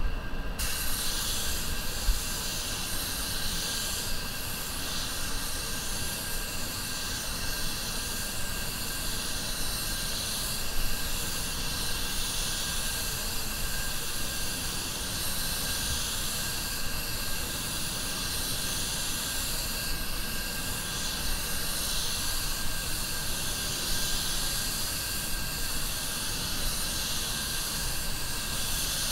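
Anest Iwata WS400 Supernova 1.3 spray gun hissing steadily as it sprays clear coat, the air starting abruptly about half a second in when the trigger is pulled, over a low rumble.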